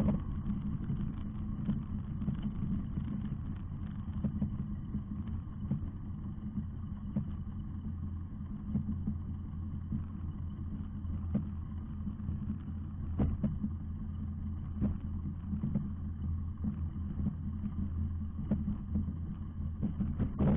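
Ultralight trike's engine and propeller idling steadily, with a few faint clicks.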